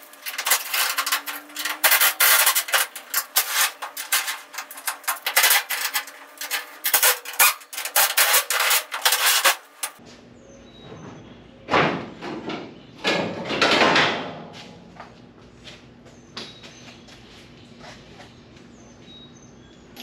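Rapid, irregular metallic clicking and rasping of tools working on the Firebird's sheet-metal body as the quarter panel is dismantled, dense for about ten seconds, then two longer scraping swells and a few light knocks.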